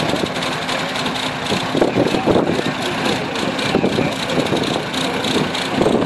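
Vintage tractor engine running steadily as it pulls a plough through stubble, with a rapid, even beat.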